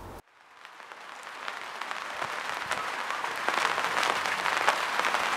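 Audience applause, many hands clapping, fading in after a sudden cut and growing steadily louder.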